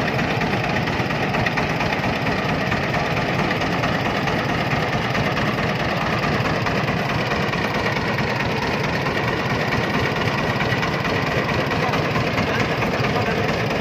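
Cargo three-wheeler's engine running steadily with a rapid, even chug.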